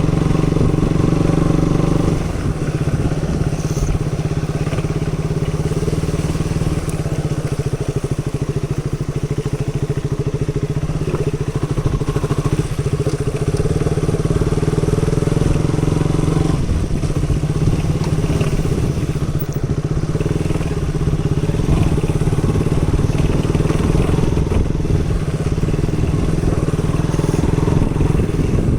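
KTM Duke 200's single-cylinder engine running under way, its engine note steady with a few shifts in engine speed, about two seconds in and again around sixteen seconds.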